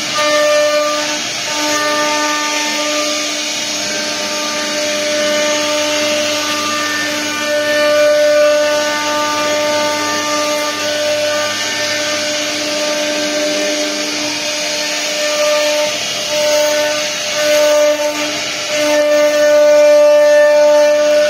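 CNC machine spindle running and cutting: a steady high-pitched whine over a hiss of cutting noise. The whine dips briefly and comes back a few times.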